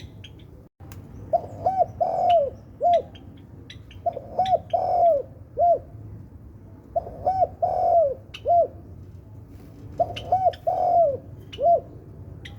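Spotted dove cooing: four repeated phrases about three seconds apart, each of two short coos, a longer drawn-out coo, then one more short coo after a brief gap.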